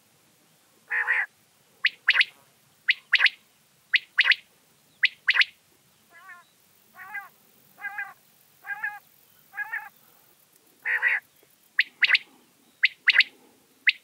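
Common quail singing: loud, sharp whistled notes in quick pairs about once a second, the bird's 'wet-my-lips' song. About halfway through come a few softer, lower, wavering notes before the loud phrases start again.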